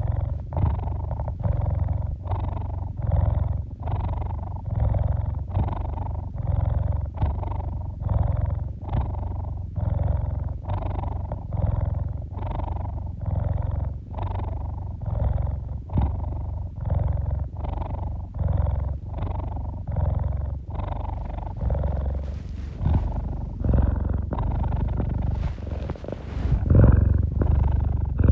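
Tabby domestic cat purring close up, a steady purr pulsing evenly with each breath in and out while it kneads. From about three-quarters of the way through, soft rustling of the fleece blanket joins it.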